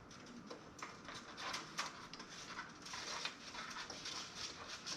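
Irregular light clicks, taps and rustling of hands handling computer parts and cables inside a metal toaster-oven case, a few sharper ticks among them.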